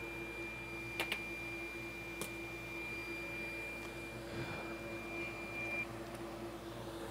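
Electronics repair bench: a steady equipment hum with a thin high whine that stops about six seconds in. Two quick light clicks about a second in and another a second later come from tools being handled.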